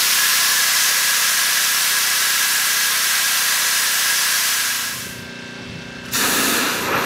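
Steady loud hiss of pressurised gas at a liquid rocket engine test rig, cutting off sharply about five seconds in. About a second later a rougher, fuller rush of gas and spray starts.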